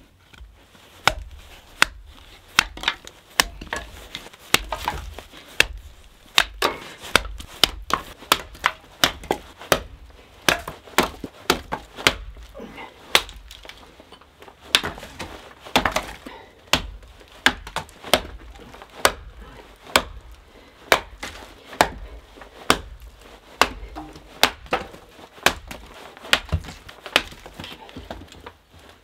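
Wetterlings hatchet chopping dead sticks into short lengths on a wooden chopping block. A long run of sharp chops comes at a little under two a second.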